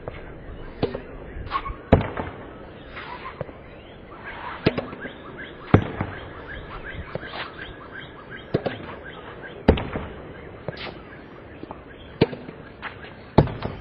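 Tennis ball struck with a racket and rebounding off a practice backboard and the hard court: a string of sharp pops at uneven intervals, the loudest one to four seconds apart, with quieter knocks between.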